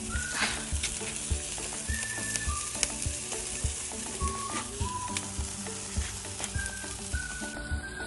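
Beef suya skewers sizzling on a wire mesh grill over hot charcoal, a steady hiss of cooking fat with frequent small crackles and pops.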